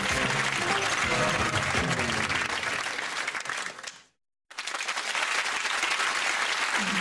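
Studio audience applauding over the show's theme music. The sound fades out and cuts to silence about four seconds in, then the applause starts again with the music coming back in near the end.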